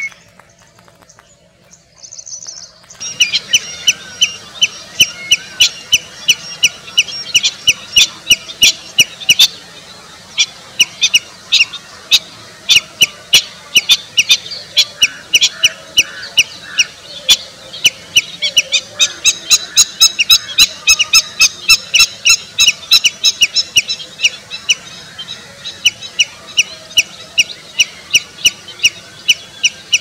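Common redshank calling: a few short high notes, then from about three seconds in a long run of sharp, repeated calls, about two to three a second.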